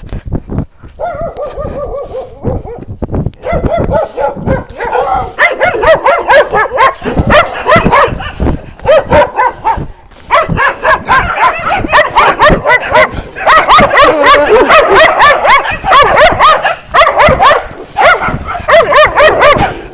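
Dogs barking and yelping loudly and repeatedly at close range.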